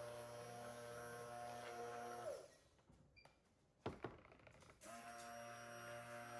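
Immersion (stick) blender blending colorant into a pitcher of cold-process soap batter. Its motor hums steadily, winds down and stops about two seconds in, and starts up again near five seconds, after a couple of short knocks just before four seconds.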